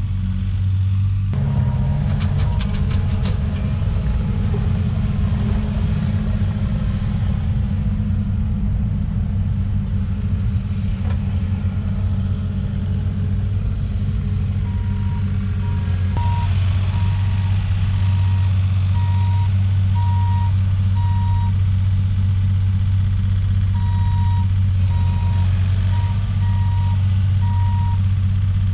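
Diesel engine of a tracked earthmoving machine running steadily under work, its backup alarm beeping at an even pace through much of the second half with a short pause. A few metallic clanks come about two seconds in.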